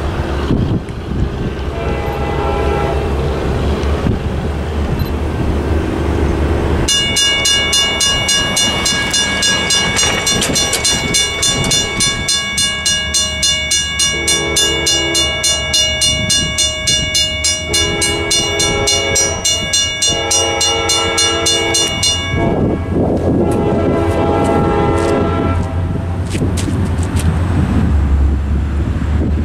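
Crossing signal's WRRS mechanical bell ringing with rapid, even strokes from about seven seconds in until about twenty-two seconds, warning of an approaching train. Over it, an approaching CSX diesel locomotive sounds its horn in a series of long blasts, over a low engine rumble.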